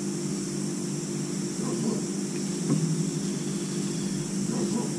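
Steady hum and hiss of a running fan-type appliance, with a few faint light ticks.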